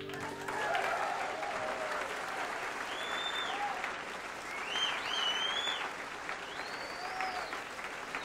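Live audience applauding, with some cheering and several whistles rising and falling above the clapping.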